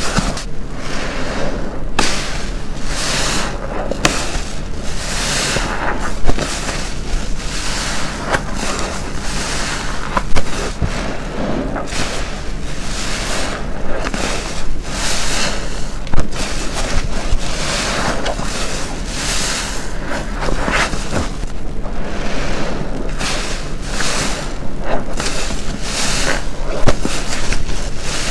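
Sponge soaked with soapy detergent water being squeezed over and over close to the microphone: wet squelching and dripping in repeated strokes about once a second, with a few sharper pops.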